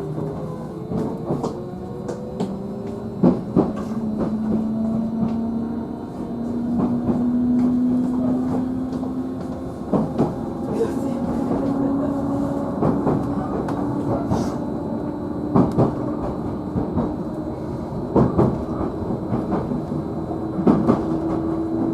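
Cab-end motor car of a JR Central 311 series electric train running: the traction motor whine climbs steadily in pitch as the train gathers speed. Wheels clack over rail joints again and again.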